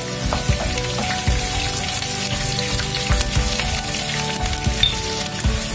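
Curry leaves frying in hot oil with a tempering of dals, ginger and garlic, sizzling with frequent sharp crackles and pops. Soft background music plays underneath.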